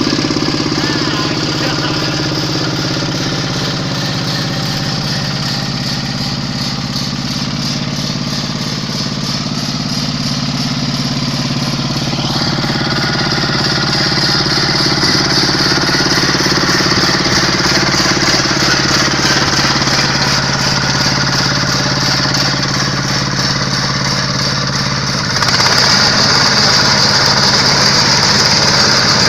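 Quick H-140R combine harvester's Kubota diesel engine running steadily with mechanical whirring. About two-thirds of the way through, a higher-pitched whine and hiss jump up sharply in loudness.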